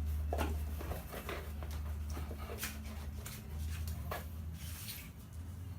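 Toys being handled and moved about: scattered small clicks and taps over a steady low hum.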